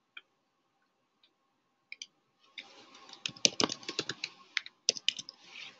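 Typing on a computer keyboard: a few isolated clicks at first, then a quick run of keystrokes from about two and a half seconds in.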